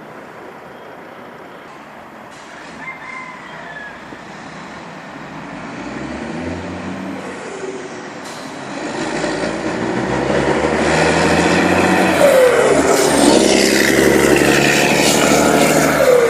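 DAF XF105 510 truck's straight-six diesel approaching and driving past, its engine note growing louder from about halfway through and staying loud to the end, with the pitch dropping as it passes, its exhaust clattering.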